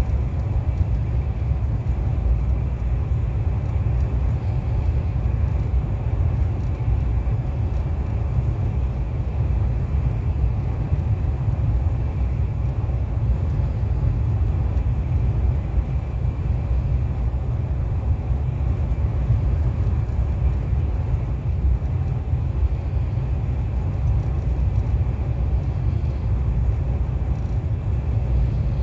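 KTX high-speed train running at speed: a steady, unbroken low rumble with a fainter hiss above it.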